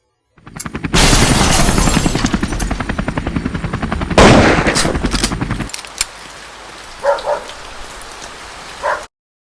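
Automatic gunfire sound effect: a long burst of rapid, evenly spaced shots, with a louder blast about four seconds in that dies away. Afterwards there is a low steady hiss with a few short sounds.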